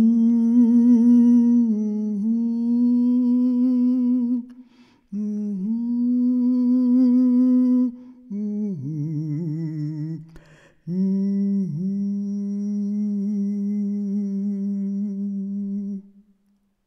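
A single voice humming a slow, wordless tune with no accompaniment, in four long held phrases with short breaks between them, stopping shortly before the end.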